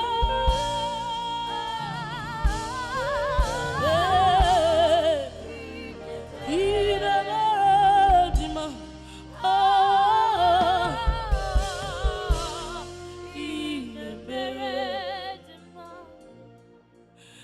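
Gospel worship singing: a voice holding long notes with wide vibrato over instrumental accompaniment with low drum hits, growing quieter near the end.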